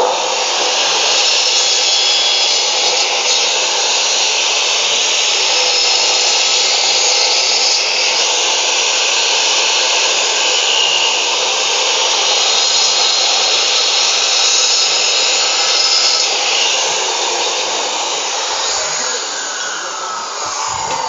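A 2000-watt Maktec cut-off saw with a 7-inch, 100-tooth Makita blade running at full speed while cutting through cattle bone and meat, a steady loud whine with a harsh rasp that eases a little near the end.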